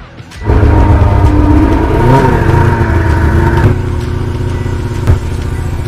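Ski-Doo snowmobile engine revving as the machine pulls away. About three and a half seconds in it drops to a quieter, steadier run.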